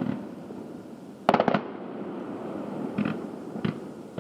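Aerial fireworks bursting at a distance: a quick cluster of sharp cracks about a second and a half in, then two single bangs near the end.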